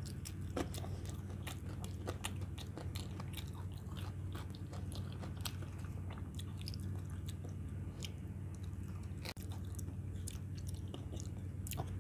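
A person chewing and biting sauce-covered fried chicken nuggets: many short crunches and mouth clicks in quick, irregular succession, over a steady low hum.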